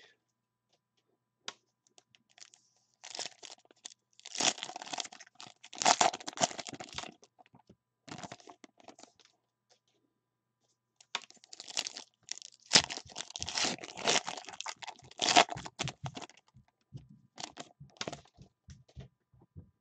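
A foil trading-card pack being torn open and its wrapper crinkled: two spells of tearing and crinkling about four seconds apart, then fainter rustling as the cards are slid out.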